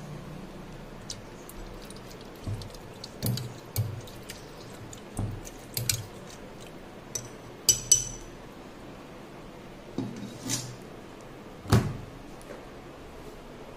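Glass pickle jars and a metal spoon being handled: scattered sharp clinks and knocks of spoon on glass and jars on the table, the loudest about eight and twelve seconds in.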